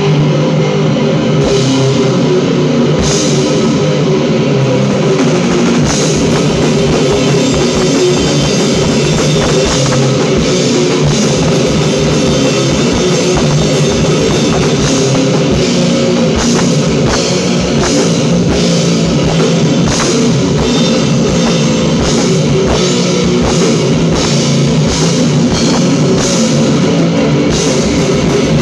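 An electric guitar and a drum kit jamming together on loud, heavy rock, with steady drum and cymbal hits under the guitar.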